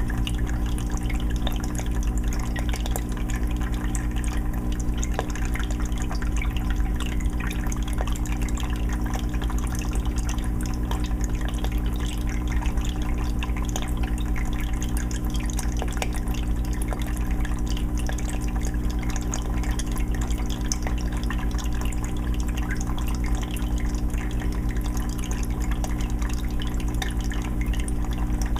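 Aquarium filter running on a 20-gallon fish tank: a steady patter of water splashing and bubbling, over a constant low motor hum.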